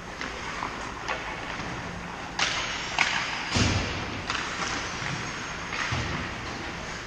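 Ice hockey play in a large indoor rink: several sharp knocks of sticks and puck, a couple of them deeper thuds against the boards, over the hall's steady background noise.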